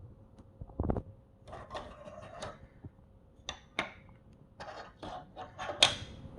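A 6.25u mechanical-keyboard spacebar pressed and released over and over in an irregular rhythm, giving sharp clacks, some in quick clusters, with the loudest clack near the end.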